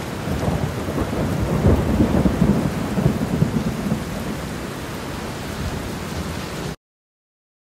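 Thunderstorm: heavy rain with rolling thunder, rumbling loudest about two seconds in, then cutting off abruptly near the end.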